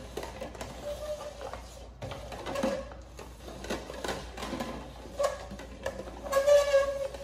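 Plastic party cups being shuffled upside down on a glass tabletop: irregular scraping and light knocking as they slide and bump. A brief pitched sound comes about a second in, and a louder one near the end.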